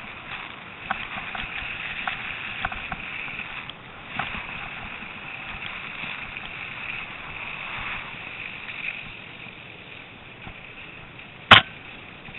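Mountain bike rolling downhill over snow: a steady hiss of tyres and riding noise, with small rattling clicks from the bike over the first few seconds. One sharp, loud knock near the end.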